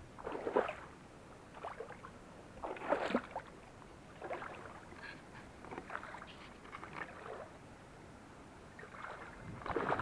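A person wading through a shallow stream pool, water sloshing and splashing with each step in a series of separate splashes about a second apart. The splashing gets louder and busier near the end.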